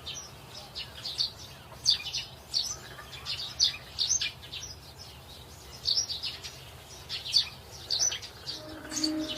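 Birds chirping: many short, high calls, a few each second, over a faint steady low hum.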